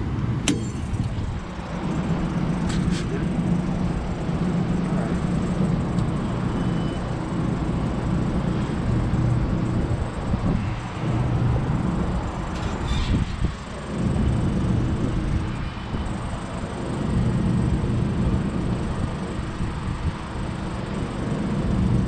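Steady low machinery drone, with a few sharp metallic clicks.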